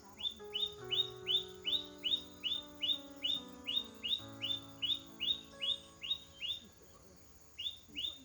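A bird calling, repeating a short note that falls in pitch about three times a second. It stops briefly near the end, then gives three more notes, over background music with long held notes.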